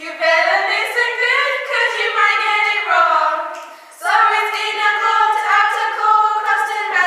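Three girls' voices singing together unaccompanied, with a short break about four seconds in before they carry on.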